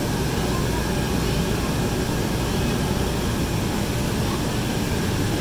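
Steady rushing noise with a low rumble during a ride down an inflatable bouncy-house slide: the inflatable's air blower, with the phone microphone brushing over the vinyl.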